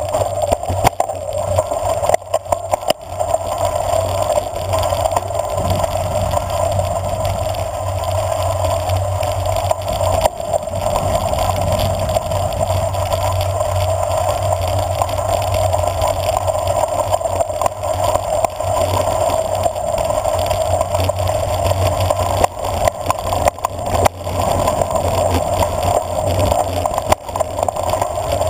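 Bicycle descending a gravel road: a steady rush of wind and tyre noise on loose gravel, with frequent short knocks and rattles as the bike runs over bumps.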